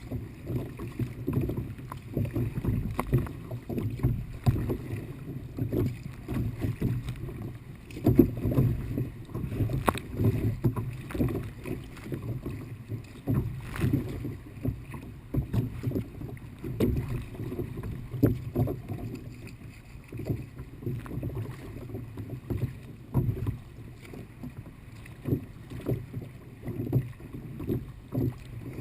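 Water sloshing and splashing against a kayak in light chop, an irregular, dull, churning sound with a few short sharp knocks.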